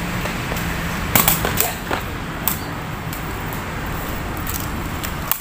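Sepak takraw ball being kicked back and forth: a handful of sharp hits, most of them between one and two and a half seconds in and one more near the end, over a steady outdoor background noise.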